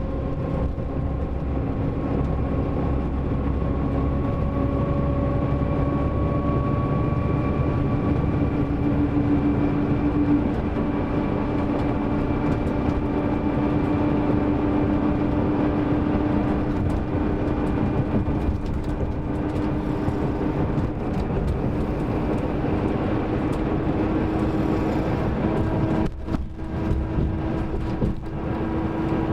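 Mercedes-Benz OM-457LA inline-six diesel of a Marcopolo Paradiso G7 double-decker coach running under way, a dense rumble with a steady whine that slowly rises in pitch. The sound briefly dips twice near the end.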